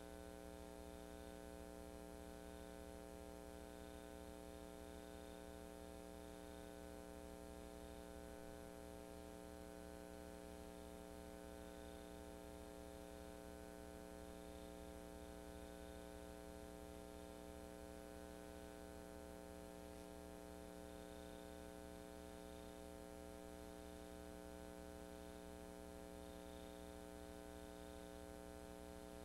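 Near silence: a faint, steady electrical hum with its overtones, unchanging throughout, over light hiss.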